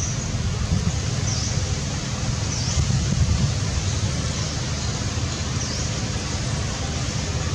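Wind buffeting the microphone, a steady low rumble over a hiss, with a faint high chirp repeating about every one and a half seconds.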